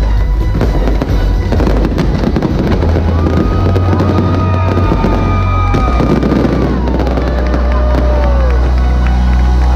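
Fireworks finale crackling and popping rapidly over loud show music with a heavy, sustained bass.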